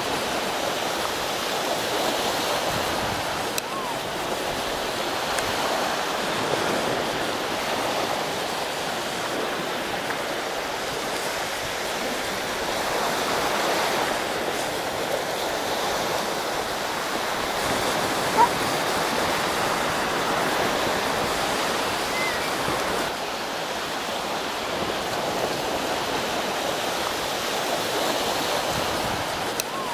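Surf washing onto a sandy beach: a steady rushing with slow, gentle swells in level. A single short click about eighteen seconds in.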